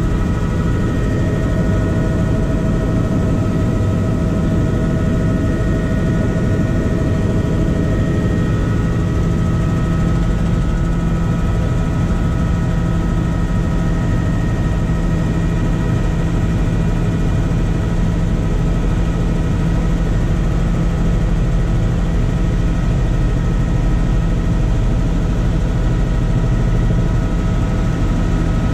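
Helicopter in level flight heard from inside the cabin: a loud, steady engine and rotor noise, a low rumble with several steady whining tones above it.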